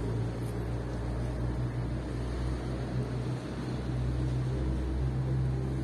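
Steady low mechanical hum with an unchanging drone.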